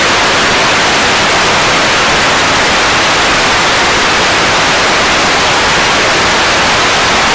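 Television static: a loud, steady hiss of white noise spread evenly from low to high pitches.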